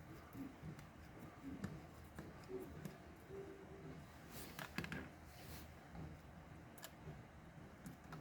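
Faint, scattered clicks and light scraping of small parts and tools being handled, with the sharpest clicks about a second and a half in and around the middle.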